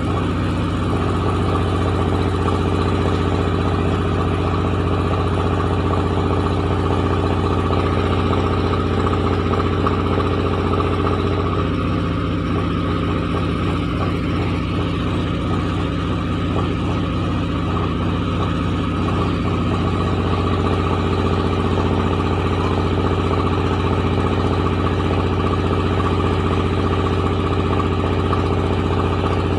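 Rice milling machine running steadily: a constant low engine hum with a steady higher mechanical tone, turning rougher and more rattling for several seconds in the middle.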